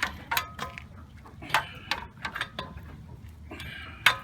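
Lug wrench clinking and clicking on the lug nuts as a wheel is tightened. About half a dozen irregular sharp metallic clinks, some with a brief ring.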